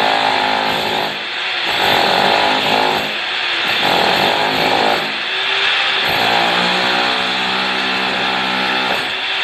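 Corded electric demolition hammer chiselling up old ceramic floor tiles and their mortar bed. It runs in four bursts with short pauses between them, and the longest, about three seconds, comes near the end.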